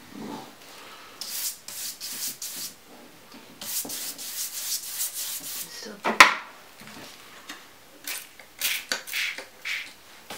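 Paintbrush scrubbing thick turquoise acrylic paint across paper, several runs of short scratchy strokes. A single sharp knock about six seconds in.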